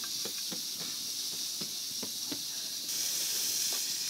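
Soft pats of hands flattening a sheet of flatbread dough, about six over two and a half seconds, over a steady hiss that grows louder about three seconds in.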